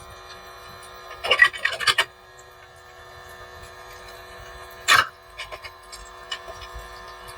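Miniature toy kitchen pieces being handled: a quick cluster of clicks and rattles a little over a second in, a single sharp tap about five seconds in, and a few lighter ticks, over a faint steady hum.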